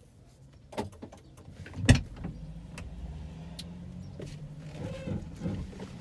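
Inside a Volkswagen Golf: a click and then a loud thump as the driver's door is opened, followed by a steady whirring hum for about three seconds.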